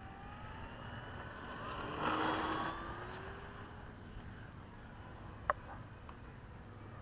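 Electric motor and propeller of a Parkzone Spitfire RC plane, heard from on board while it taxis. Its thin whine glides up and down in pitch with the throttle, with a louder rush about two seconds in and a single sharp click later on.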